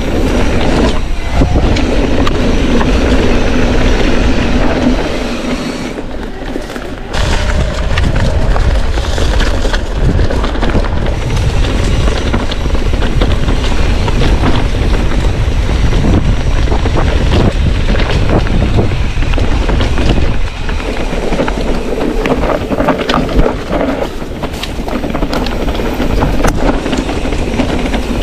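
Mountain bike descending a rough trail at speed: wind buffeting the microphone, tyres rolling over stones and the bike rattling, with a brief easing about six seconds in.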